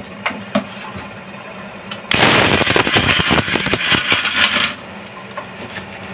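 Electric mixer grinder running in one short burst of about two and a half seconds, grinding hard almonds in its small steel jar with a dense rattle. It starts and stops abruptly, and a few clicks and knocks of the jar and lid being handled come before it.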